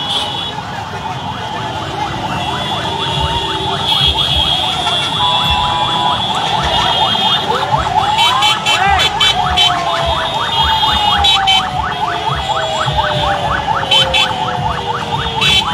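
Busy street din of motor traffic and a crowd, with horns sounding and a siren-like tone that rises about halfway through and then slides slowly down.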